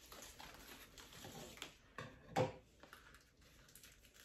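Faint rustling and handling sounds of a collagen casing being worked onto the nozzle of a jerky gun, with a single sharp knock about two and a half seconds in.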